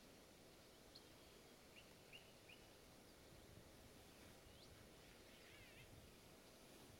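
Near silence: faint outdoor ambience with a few scattered, short high bird chirps and whistles, ending in a brief wavering call near the end.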